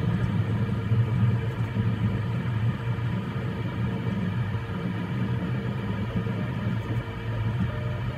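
Voron 3D printer printing: a steady hum of its fans, with the stepper motors whirring and warbling as the toolhead moves.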